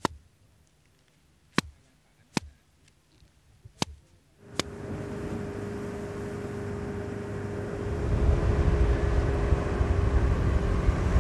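A few sharp, isolated knocks about a second apart, then a motor starts running steadily about halfway in, growing louder with a low rumble over the last few seconds.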